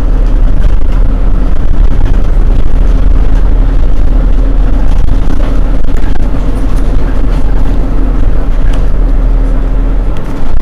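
Mercedes-Benz Citaro G C2 articulated bus's rear-mounted engine idling steadily while the bus stands still. Heard from close behind the engine compartment, it is a loud, even hum.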